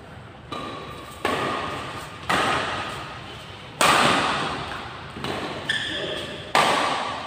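Badminton rackets striking a shuttlecock in a doubles rally: about seven sharp hits, roughly a second apart, each echoing through a large hall.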